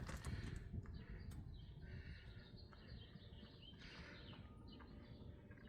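Faint outdoor ambience: a steady low rumble with a few distant birds chirping.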